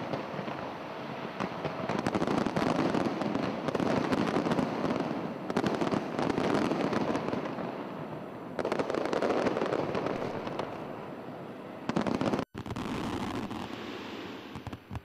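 Fireworks display: a dense, continuous run of bangs and crackling from shells bursting, with a sudden break for an instant about twelve seconds in.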